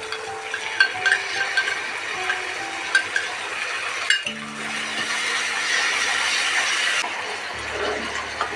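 Food sizzling in a pan while a utensil stirs, with sharp clinks of metal on the pan at irregular moments, under soft background music.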